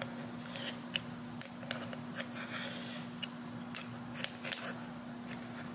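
Scattered small metal clicks and clinks, with a short scrape in the middle, from a wrench and hand tools working a tight, sticky part on a small-engine carburetor. A faint steady hum runs underneath.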